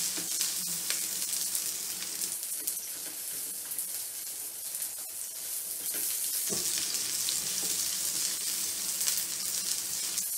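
Chopped onion sizzling in hot oil in a non-stick wok while being stir-fried with a silicone spatula: a steady frying hiss with occasional light scrapes and taps of the spatula.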